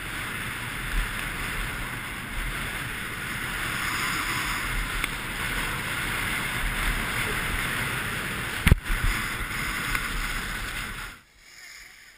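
Wind rushing over an action camera's microphone during a fast downhill ski run, mixed with the steady scrape of skis on packed snow. A single sharp knock about nine seconds in; the rushing noise cuts off abruptly near the end.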